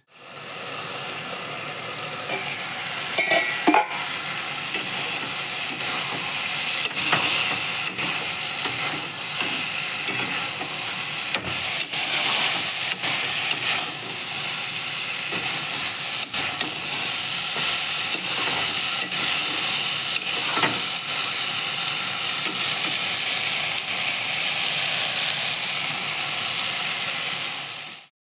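Okra (bhindi) masala sizzling in a kadai as it is stirred with a spatula: a steady frying hiss with scattered scrapes and clicks of the spatula against the pan. It starts abruptly and cuts off suddenly near the end.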